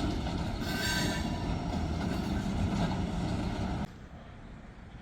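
Freight train cars rolling past with a steady rumble and rail noise. The sound cuts off suddenly near the end, giving way to much quieter background.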